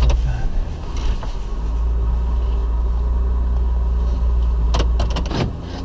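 2000 Buick LeSabre's 3.8-litre V6 idling steadily, heard from inside the cabin, warming up just after being started from a flooded condition. A few sharp clicks come near the end as the low rumble eases slightly.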